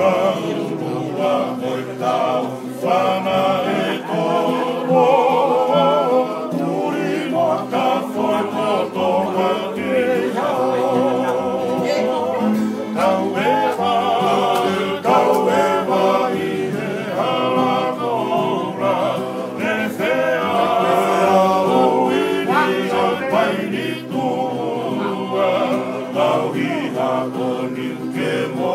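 Several men singing together in harmony, accompanied by strummed acoustic guitars and a ukulele.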